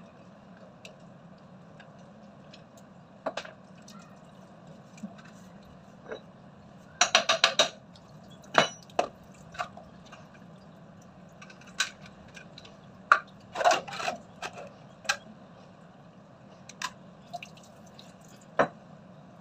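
Scattered metallic clinks and knocks of hand tools and pump parts as an electric water pump is unbolted and lifted off its base, with a quick run of four or five clicks about seven seconds in and another cluster of knocks a few seconds later.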